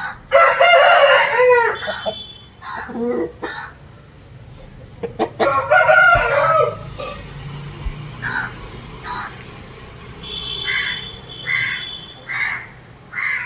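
Rooster crowing: two long crows of about a second and a half, one at the start and one about five seconds in, with shorter calls between them and a run of short, evenly spaced calls near the end.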